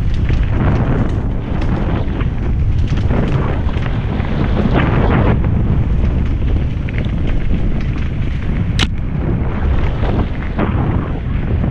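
Wind buffeting the microphone of a helmet camera on a mountain bike riding fast down a dirt trail, a steady loud rumble, with frequent rattles and knocks from the bike over the rough ground. A single sharp click stands out nearly nine seconds in.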